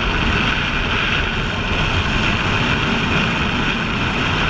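Steady wind rush and motorcycle engine noise on a helmet-mounted camera while riding at road speed.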